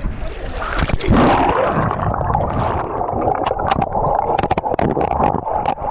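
Water splashing as the camera goes under about a second in, then muffled underwater gurgling with many short clicks and pops of bubbles, heard through a submerged action camera.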